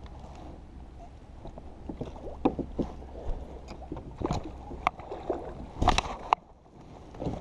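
Kayak on the water: scattered knocks and clicks of gear and handling against the hull, loudest about six seconds in, over a low steady rumble.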